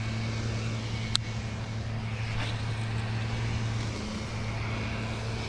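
Steady low motor-like hum over faint background traffic noise, with a single short click about a second in.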